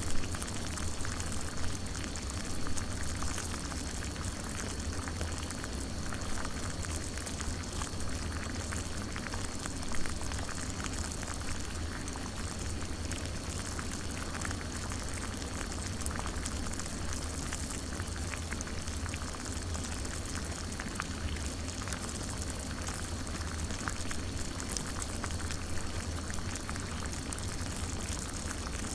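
Water boiling in a coffee pot: a steady bubbling and crackling over a low rumble, with a few louder pops in the first seconds and one about ten seconds in.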